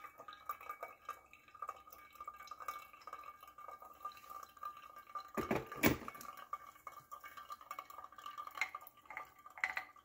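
Thin stream of hot water from a gooseneck kettle trickling steadily onto coffee grounds in a pour-over dripper. The water stops about halfway through, followed by a clunk as the kettle is set down on its base, and a few light clinks near the end.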